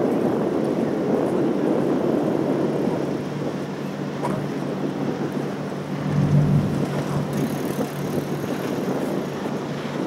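Steady outdoor wind and water noise with a low hum underneath, the hum swelling briefly about six seconds in.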